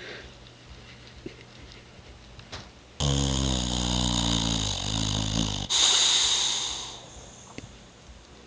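A sleeping Boxer dog snoring: quiet breathing, then about three seconds in one long, loud snore with a dropping pitch, followed by a breathy hiss for about a second.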